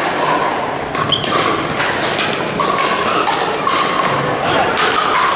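Pickleball paddles hitting the plastic ball back and forth in a rally: a quick series of sharp hits, about one every half second to a second, each ringing briefly.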